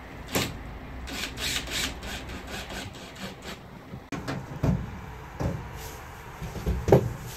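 A thin laminated plywood lining panel knocking and rubbing against a van's metal side wall as it is fitted. There is a sharp click about half a second in, then rustling scrapes, then several dull thumps, the loudest near the end.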